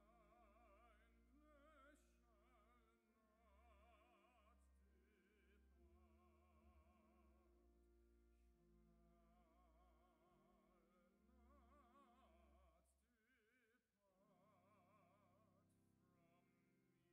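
A hymn sung with wide vibrato over sustained organ notes, phrases rising and falling with a brief break near the end; the recording is faint.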